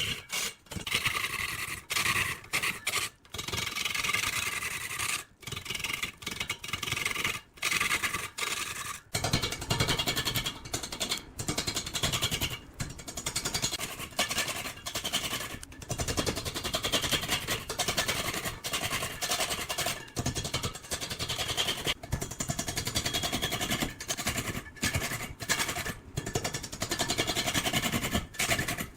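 Woodworking tools scraping and cutting into wood, a steady rasping noise that breaks off abruptly many times as short clips are spliced together.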